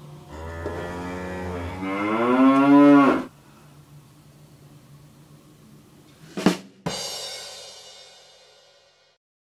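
Scania R560 truck's V8 diesel engine running, then revving for about a second with a rising pitch before it cuts off. Near the end comes a sharp hit followed by a bright, fading shimmer of a sound effect.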